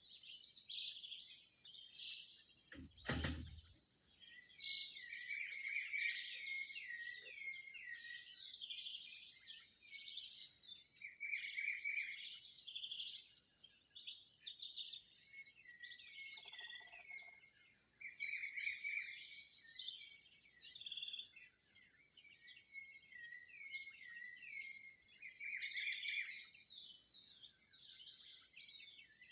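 Dawn chorus of many small birds chirping and trilling over a steady high-pitched insect drone. A low thump about three seconds in.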